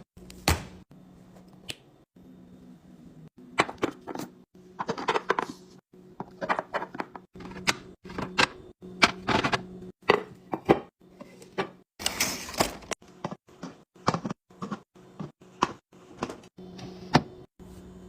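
Food containers and grocery items being handled and set down while a refrigerator is restocked: irregular clacks, taps and knocks, with a longer noisy burst about twelve seconds in. A low steady hum runs underneath.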